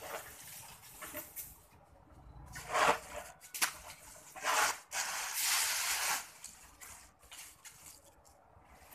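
Broom sweeping dry leaves across a concrete floor: several scratchy strokes with leaves rustling, the longest from about four and a half to six seconds in.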